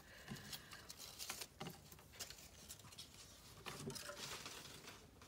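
Faint paper handling: a few soft taps and light rustles, spaced out, as torn paper strips and painted journal pages are set down and shifted on a craft mat.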